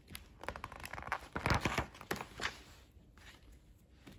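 A paperback picture book's page being turned by hand: a few quick paper rustles and soft knocks in the first two and a half seconds, the loudest about a second and a half in.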